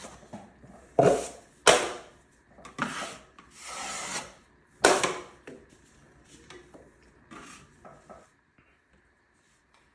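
Drywall knife scraping setting compound over a taped crack on a ceiling, a series of short scraping strokes. The strokes are loudest in the first five seconds and grow fainter after that.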